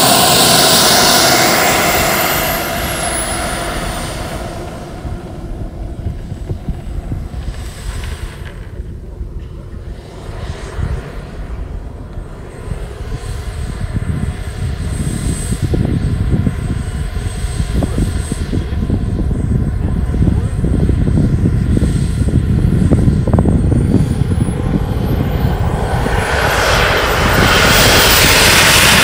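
Turbine engine of a large radio-controlled Eurofighter Typhoon jet model in flight: a loud pass at the start whose high whine drops in pitch as it fades, a fainter steady whine through the middle, then the whine rising again into another loud pass near the end.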